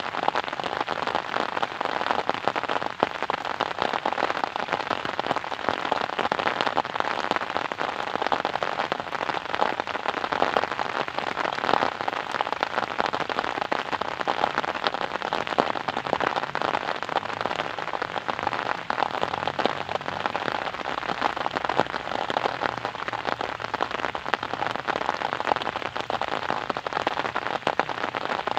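Steady rain, a dense patter of many close drops falling on a surface without let-up.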